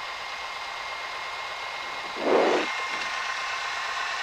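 Cessna 172's engine and propeller running steadily at low power, heard from inside the cabin, with a short louder swell about two seconds in.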